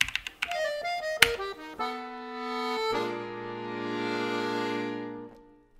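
A few computer-keyboard keystrokes at the start as a command is typed. Then a short piece of music: a run of quick notes, then one long held chord that stops shortly before the end.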